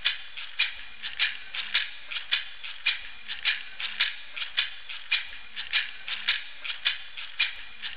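A rattle shaken in a steady rhythm: a sharp shake nearly twice a second, with lighter shakes in between.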